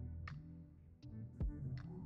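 Background music with a steady drum beat under held chords.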